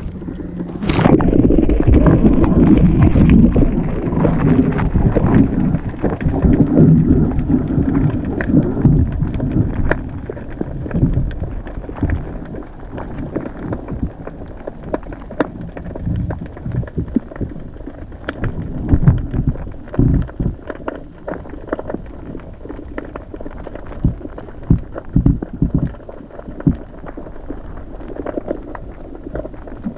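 Muffled underwater water noise picked up by a submerged camera: a heavy low rumble about a second in that lasts some ten seconds, then quieter swirling noise with scattered sharp clicks and crackles.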